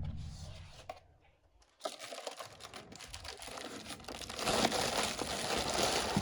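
Crinkling and rustling of toy packaging being handled and torn open, starting about two seconds in and growing louder.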